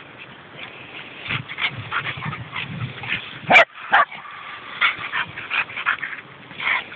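Dogs barking and yipping in play, many short calls in quick succession, with one very loud, sharp bark about halfway through.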